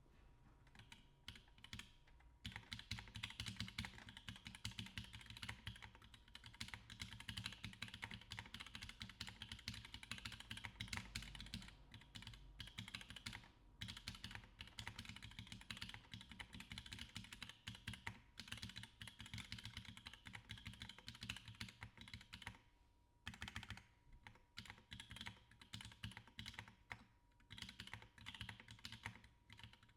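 Steady, fast typing on a custom mechanical keyboard with lubed NovelKeys Cream linear switches, GMK keycaps and an aluminum plate: a quick, uneven run of soft keystroke clacks. There is a short pause a little past two-thirds of the way through, and the strokes come more sparsely after it.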